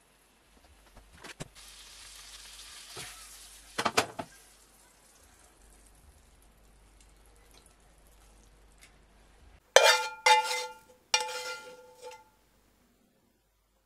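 Pan sauce sizzling softly in a nonstick frying pan as a pat of butter melts in, with a knock about four seconds in. Near the end, three short, loud scrapes of a metal spoon against the pan, each with a ringing tone, as sauce is spooned out.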